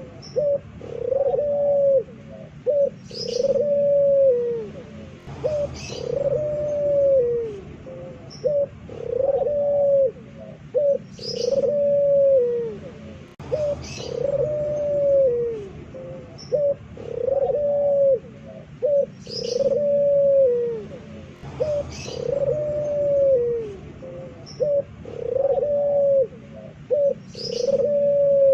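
Puter pelung (Barbary dove) cooing loudly over and over, each coo a drawn-out note that rises slightly and then falls, about one every second and a half, with short clipped notes between. Brief high chirps from another small bird come through every few seconds.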